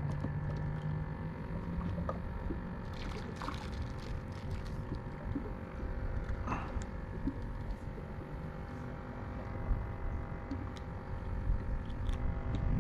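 Small fishing boat on the water: a steady low rumble with a faint steady hum and a few scattered light clicks and knocks.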